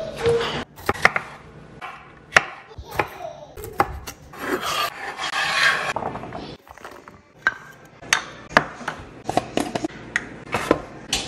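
Food being prepared on a wooden cutting board: sharp taps and knocks of utensils and produce on the board throughout. Around the middle comes a couple of seconds of rubbing and scraping as garlic cloves are rolled under the hand.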